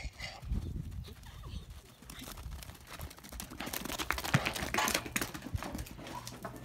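Donkeys' hooves trotting and scuffling on dirt, an irregular run of dull thuds and scrapes that is busiest in the middle.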